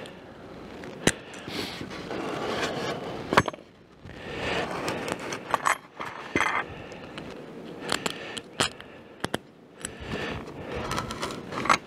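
Hand-handling noises: irregular small clicks and scrapes of screws and washers being picked out and sorted, with short rustles and scraping from a plastic bag and polystyrene foam panels. No power tool runs.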